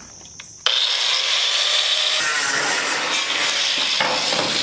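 An electric power tool cutting through a sheet of metal roofing panel: the cut starts suddenly about half a second in and runs on steadily as a harsh, high, grinding rasp.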